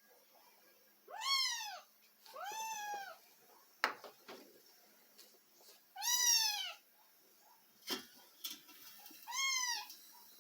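A cat meowing four times, each a drawn-out call that rises and then falls in pitch, with a few sharp clicks in between.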